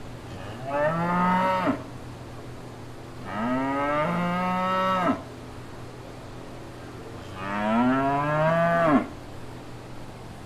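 A cow mooing three times, a few seconds apart. Each moo rises in pitch and then holds for one to two seconds; the middle one is the longest.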